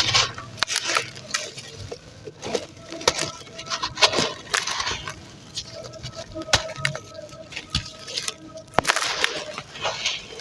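Crunchy red sand crumbling into foamy water: irregular sharp cracks and crackles among short gritty crunches.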